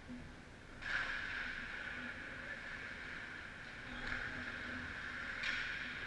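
Ice-arena ambience: a steady hiss that starts suddenly about a second in, with a couple of brief sharper scrapes later on.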